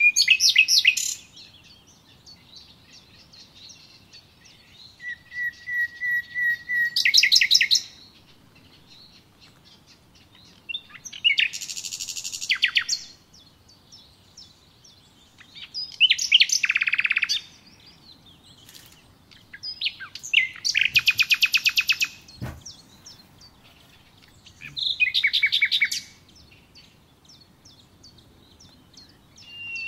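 A songbird singing in short phrases of fast, high trills, one phrase every four or five seconds with quiet gaps between; one phrase opens with a steady high whistle before breaking into the trill.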